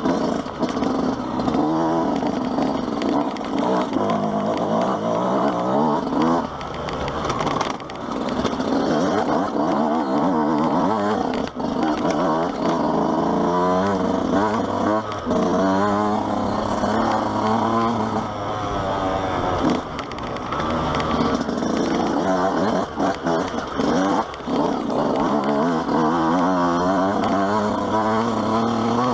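Yamaha YZ125's single-cylinder two-stroke engine revving hard and falling back again and again as the bike is ridden over a rough dirt trail, with a few sharp knocks along the way.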